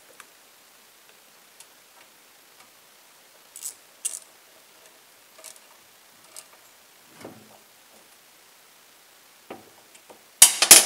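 Scattered light metallic ticks and clinks of hand tools at the ignition coil of a Predator 212 engine, as the coil is snugged down with a feeler gauge setting its air gap to the flywheel magnet. A louder rattling clatter comes near the end.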